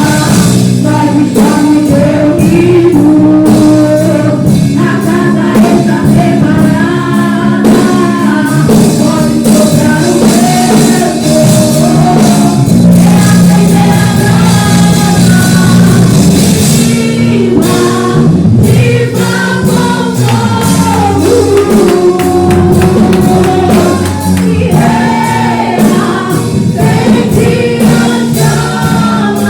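Live church worship music: singers over a band with bass, guitar and drums, with a tambourine.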